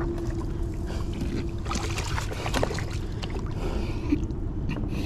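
River water sloshing against the rocks at the bank over a low rumble, with a faint steady hum for about the first two seconds and a few light clicks.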